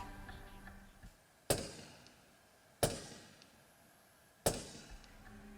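Suppressed .300 Blackout rifle firing three 220-grain subsonic rounds, one shot about every second and a half, each a sharp report with a short tail and no supersonic crack.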